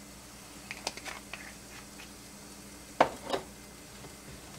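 Pepper being shaken over a frying pan of chicken: a few light clicks and taps, then a sharp knock about three seconds in, with a smaller one just after, as the pepper container is handled and put down.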